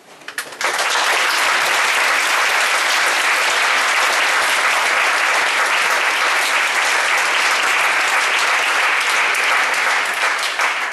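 A large school audience applauding: a few scattered claps, then full, steady applause from about half a second in, tailing off near the end.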